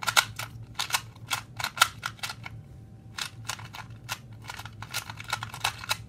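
A plastic 2x2 Rubik's cube being scrambled by hand: a rapid, irregular run of sharp clicks and snaps as its layers are twisted, several a second.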